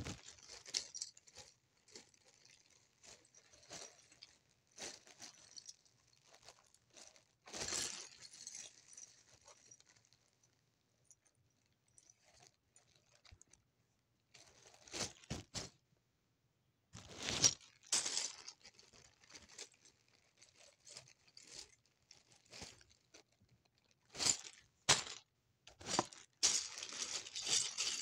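Small plastic Lego pieces being handled and rummaged through: irregular clicks, rattles and rustles. There are louder flurries about 8 seconds in, around 15 and 18 seconds, and again near the end, with a quieter lull in between.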